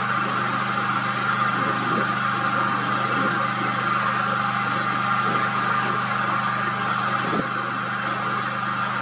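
A steady engine hum running at an even pitch and level, with a hiss over it.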